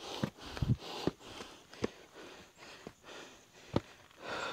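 Shoes stepping and scuffing on loose gravel and rock on a steep climb, a step about every second, with the climber's heavy breathing between steps and a longer, louder breath near the end. The climber is out of breath from the ascent.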